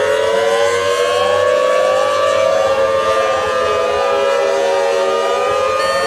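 Civil-defense-style siren of an EAS alarm: several pitches sound together, still rising slightly at first and then holding steady. A short rising sweep repeats over them about every two-thirds of a second.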